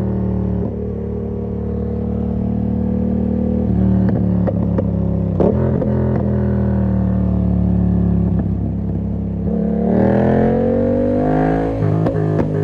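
Yamaha MT-07's parallel-twin engine breathing through an SC Project exhaust with the dB killer fitted, running at steady revs while riding. About ten seconds in the revs climb under acceleration, then drop back sharply near the end, as at a gear change.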